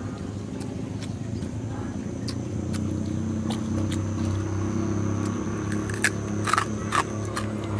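Motorcycle engine running, slowly getting louder, with a few sharp clicks about six to seven seconds in.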